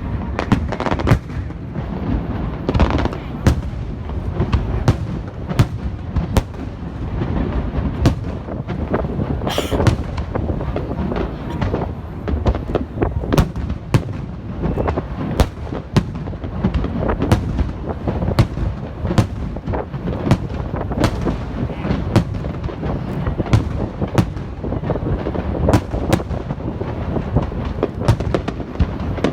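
Fireworks display: a rapid, continuous barrage of aerial shell bursts, several loud bangs a second over a low rolling rumble, with a brief rising hiss about nine seconds in.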